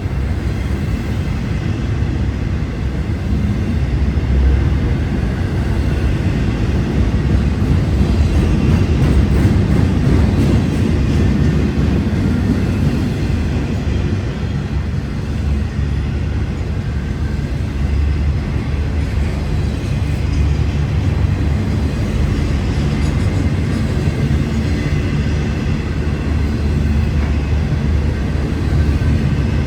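Union Pacific freight train rolling past, a steady, loud low rumble of the train moving on the rails.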